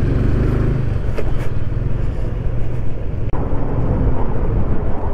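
TVS Apache RTR 160's single-cylinder engine running steadily on the move, as heard from the rider's camera.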